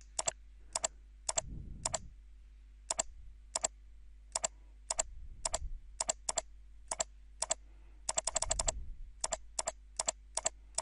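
Computer mouse clicking again and again, about two clicks a second, with a quick run of four about eight seconds in.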